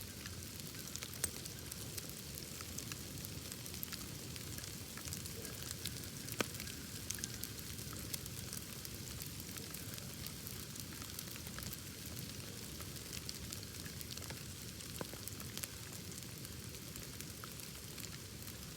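Wood bonfire burning with steady crackling and many small snaps, and a sharper pop about six seconds in.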